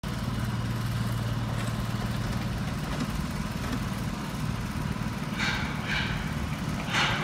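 Engine of construction machinery running steadily with a low hum, with a few short, higher-pitched sounds near the end.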